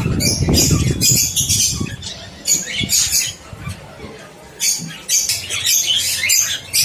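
Caged small parrots squawking and chattering, many short sharp calls one after another. A low rumble in the first second or two.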